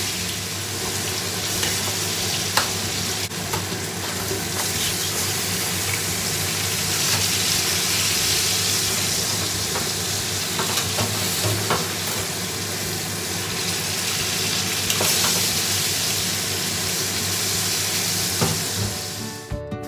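Pork steaks frying in a shallow pan of sauce, sizzling steadily over a low hum. A few sharp clicks come from the metal tongs touching the pan as the steaks are turned and lifted out.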